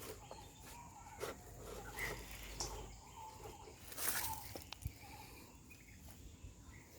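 Quiet background with a few soft, scattered knocks and clicks.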